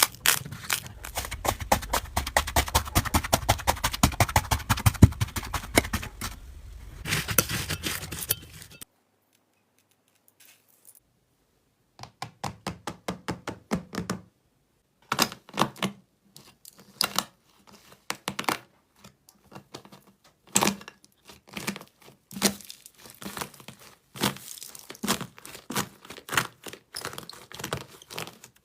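Slime being squeezed and worked by hand, making rapid crackling and popping clicks. The sound stops for a few seconds about nine seconds in, then comes back as slower, separate pops.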